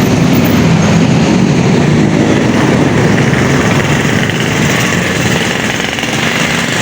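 Large bus engine running loud and steady, with road and traffic noise.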